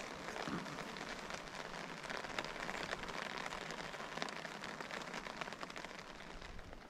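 Steady rain falling, a constant hiss made up of many small drop ticks.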